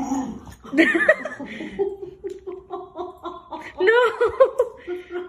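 A person laughing, with a run of short repeated laughs in the middle and higher giggling bursts around them.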